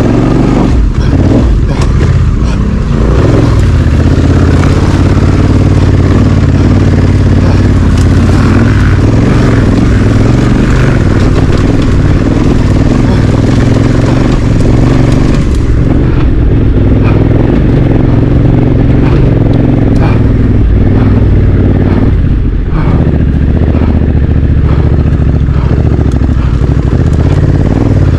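Honda Africa Twin CRF1100 DCT's parallel-twin engine running steadily at low revs while the bike is ridden off-road, with repeated knocks and clatter from the rough ground.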